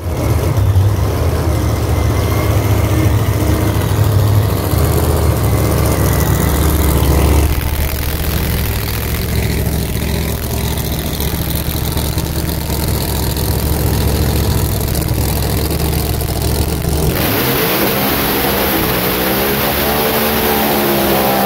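Drag racing car's engine running loudly at a steady idle, then, from a few seconds before the end, revved up and down repeatedly during a burnout, with a loud rush of spinning-tyre noise over it.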